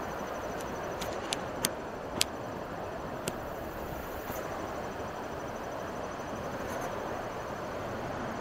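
Steady rush of the Chattahoochee River's water running over rocky shoals, with a few sharp clicks between one and three seconds in.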